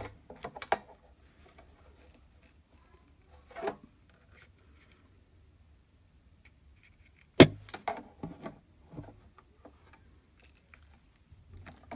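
Handling of Big Shot die-cutting machine cutting plates: scattered light taps, a soft knock about three and a half seconds in, and a single sharp clack about halfway through as a plate is set down, followed by a few lighter taps.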